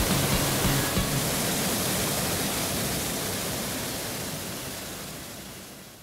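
Mountain stream water rushing over stones: a steady, full hiss that fades away gradually over the last three seconds.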